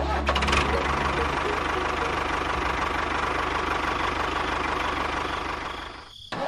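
A motor running steadily with a fast, even low pulsing, fading out about six seconds in.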